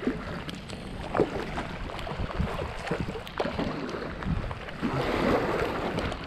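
Kayak paddling: paddle blades dipping and splashing, with water sloshing against the boat, and a louder wash of water about five seconds in.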